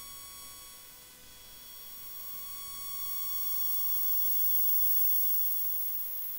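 Amplified square-wave tone of about 1 kHz from an AC capacitance-measuring bridge, changing in loudness as the balance potentiometer is turned: it fades about a second in, swells to its loudest around five seconds, then starts to fade again near the end. The bridge is being tuned toward the volume minimum that marks balance.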